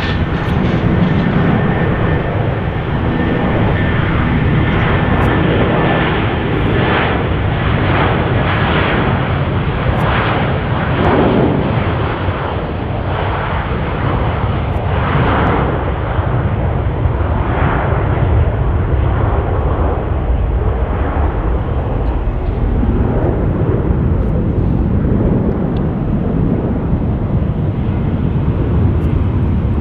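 Jet airliner engine noise: a loud, continuous rumbling rush that swells and wavers.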